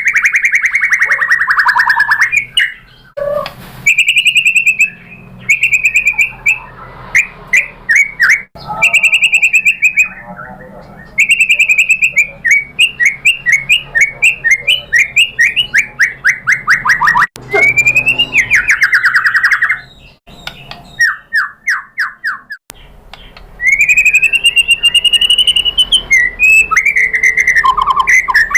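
White-rumped shama singing loudly: phrases of rapid trilled notes and clear whistles, several series sliding down in pitch, broken by short pauses.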